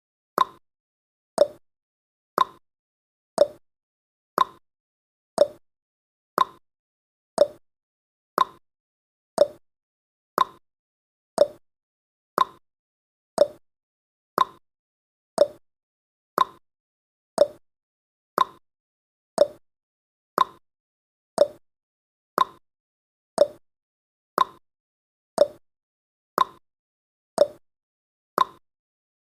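Countdown timer's clock-tick sound effect: a short, sharp tick once a second, steady and evenly spaced.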